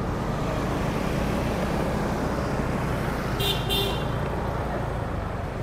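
City street traffic: a steady rumble of passing vehicles, with a brief high-pitched double toot of a horn about three and a half seconds in.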